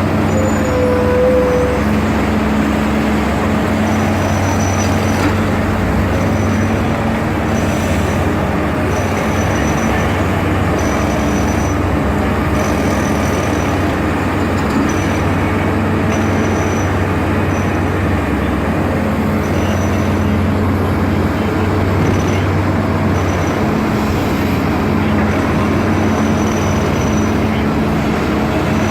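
Excavators' diesel engines running in a steady, loud drone, with short high tones that come and go above it.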